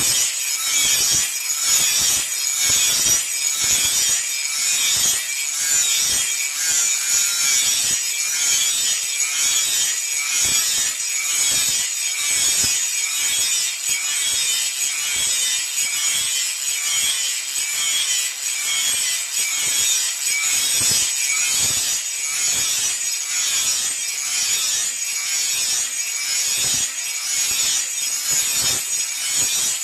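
Steady back-and-forth rasping strokes of a hand tool working iron, such as filing or hacksawing, about two strokes a second.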